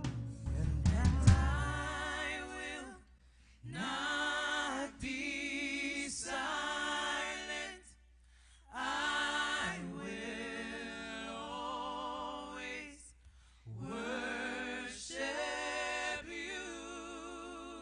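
Worship singers singing a slow worship song in harmony, in long held phrases with vibrato separated by short pauses. The band's low instruments drop out about two seconds in, leaving the voices almost unaccompanied.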